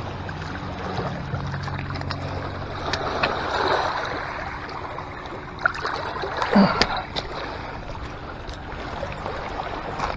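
Water splashing in rocky shallows as a freshly landed striped bass flops at the edge of the lake, with two louder splashes, the louder one about six and a half seconds in as the fish is gripped and lifted out.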